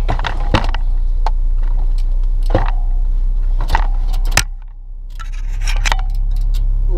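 BMX bikes stacked in a car's boot rattling and clanking against each other, metal on metal, over the steady low rumble of the car on the move. The rumble drops away for about half a second a little after the middle, then returns.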